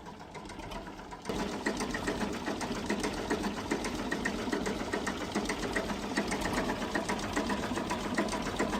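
An engine running with a fast, even clatter that cuts in abruptly about a second in.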